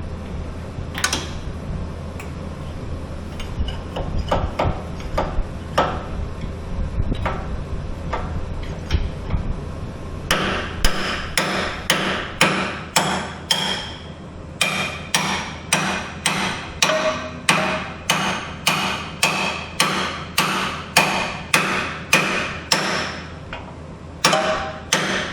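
Metal-on-metal hammer blows, ringing, repeated about one and a half times a second from about ten seconds in, with brief pauses; hammering on parts during axle bushing replacement on a scissor lift. Before the steady hammering come a few scattered knocks over a steady low hum that fades out about ten seconds in.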